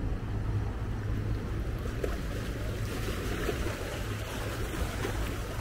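A cabin cruiser motoring past with a steady low engine drone, mixed with the wash of water from its wake.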